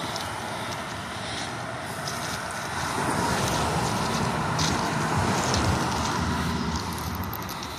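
Diesel locomotives of a stopped freight train idling with a steady low rumble, with wind on the microphone. A louder engine sound with a shifting pitch swells up about three seconds in and fades near the end.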